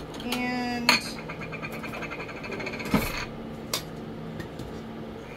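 A stainless steel mixing bowl being handled on a kitchen counter, clinking and clunking: a sharp click about a second in, a louder knock with a brief metallic ring around three seconds, and a lighter click shortly after.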